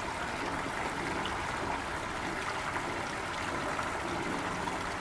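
Water spilling steadily through the lock gates and splashing into the lock chamber, a continuous rushing trickle.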